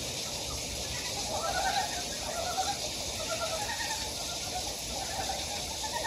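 Chorus of frogs calling in a shallow stream pool: several animals giving short trains of rapid croaks that overlap, a new call starting about every half second, over a steady hiss.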